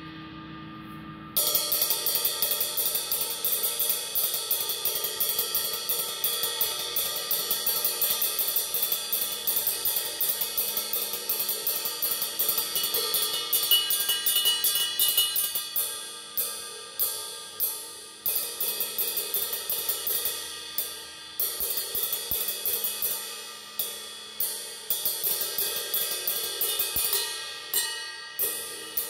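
Vintage 20-inch Sabian AA Sound Control ride cymbal struck on the bow with a wooden drumstick. A fast, steady ride pattern starts about a second in with the wash ringing continuously. About halfway through it breaks into spaced single strokes and short groups, each ringing out between hits.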